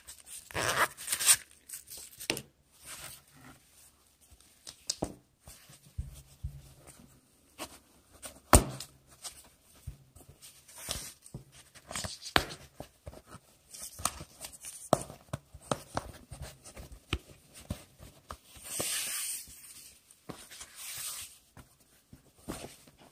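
Hands handling and rubbing a neoprene belly-band holster: irregular rustling and scratching of the fabric, with a sharp knock about eight and a half seconds in and a longer scratchy rub near the end.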